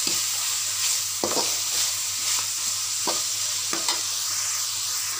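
Long beans with grated coconut sizzling in a metal wok as a metal spatula stirs them, the spatula scraping and knocking against the pan about four times.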